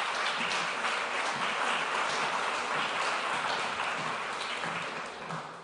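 Conference audience applauding, a steady patter of many hands clapping that dies away near the end.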